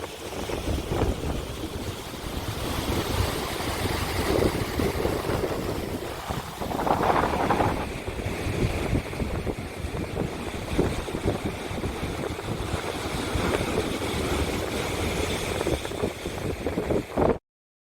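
Strong gusty wind buffeting the microphone, with waves breaking on the shore beneath it and one louder surge about seven seconds in. It cuts off suddenly near the end.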